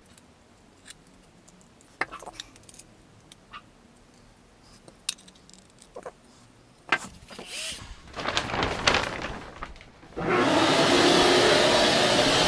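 Clicks and handling knocks. Then, about ten seconds in, a loud steady whirring starts all at once: a shop vacuum and a rotary tool with a router base cutting a fin-box channel in the foam surfboard.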